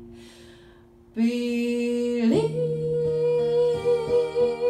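Live acoustic music: a held note dies away to a brief hush, then a female voice hums a wordless held note that glides up in pitch, with an acoustic guitar coming in under it, its notes plucked one after another.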